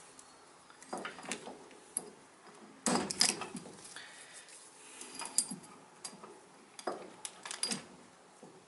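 Scattered metallic clicks and clinks of a piston, its wrist-pin retaining clip and snap-ring pliers being handled on a workbench while the clip is worked into its groove. The loudest cluster of clinks comes about three seconds in, with more near the end.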